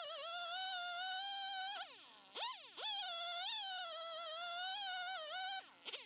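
Two-stroke chainsaw running at high revs, its pitch wavering as it cuts. About two seconds in the throttle is let off and snapped back up, and near the end the revs drop away.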